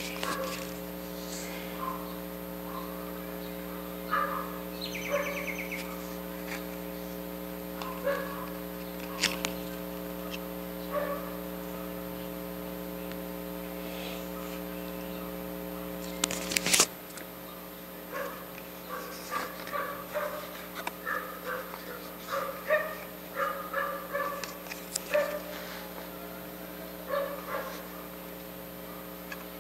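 A steady electrical hum, with a few sharp knocks about 9 and 16 seconds in and many short, faint pitched squeaks in the second half.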